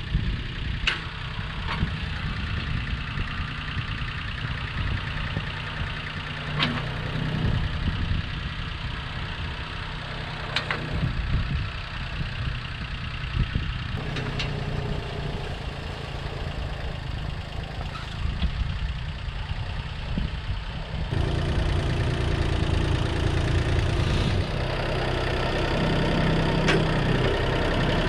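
International Harvester 234 compact tractor's three-cylinder diesel engine running steadily as it works with its front loader. It grows louder in two steps about three-quarters of the way through as the tractor comes up close. A few sharp knocks sound in the first half.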